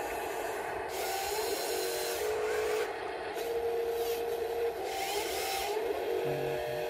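Huina RC wheel loader's electric motors and gearboxes whining as it drives forward and lifts its loaded bucket, the pitch briefly rising and falling. A harsher grinding rasp sets in about a second in and again about five seconds in.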